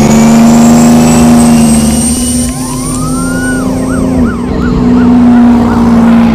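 Police siren: one long wail sweeping up and falling back, then switching to a fast yelp of about three rises a second, over a loud, steady low drone.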